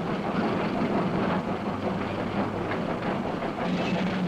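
Steam locomotive and rail wagons running in a railway yard, a dense, steady noise with no clear beat.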